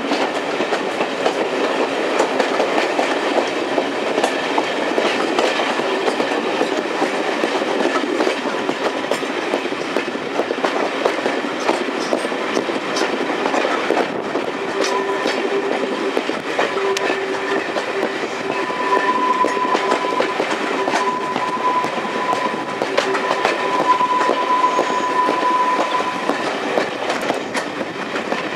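Heritage diesel train running, heard from an open carriage window: a steady rumble with the wheels clicking over the rail joints. About halfway a thin high squeal comes in and comes and goes, fading out near the end.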